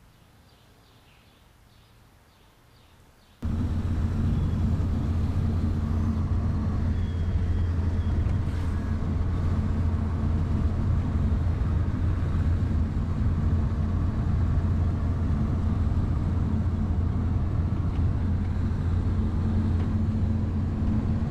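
Faint near-quiet with a few faint chirps, then, about three seconds in, a sudden cut to the steady drone of a car's engine and tyres heard from inside the cabin while driving.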